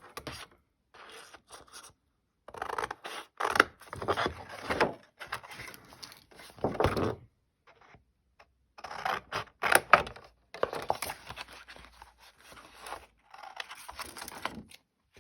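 Card stock being handled and cut with scissors: irregular stretches of scraping and rustling paper, with a pause about a second in and another around eight seconds in.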